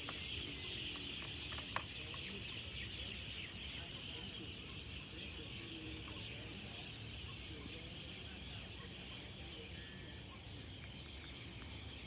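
A dense, steady chorus of high chirping from animals in the trees and grass, fading slightly toward the end, over a low rumble. A sharp click comes about two seconds in.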